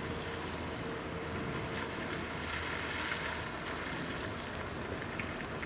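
Steady rain falling: an even hiss of drops on surfaces, swelling slightly about three seconds in.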